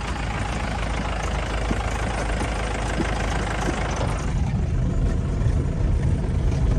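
Mahindra Thar's engine running at low speed while driving on a dirt track, heard from the driver's seat. Over the first four seconds a rushing tyre and road noise comes in through the open window, then eases off.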